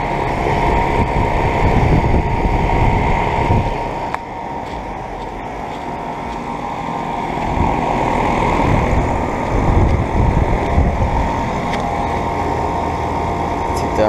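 Central air conditioner outdoor condensing units running: a steady hum from the fan and compressor, with an uneven low rumble of rushing air that surges for a few seconds at a time.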